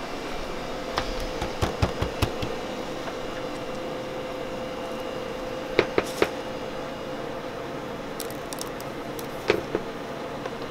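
Steady room hum with a faint constant tone, over which come a few short clusters of light clicks and taps from hand-dipping chocolate truffles and setting them down on a tray: a handful about a second in, three close together near six seconds and one more near the end.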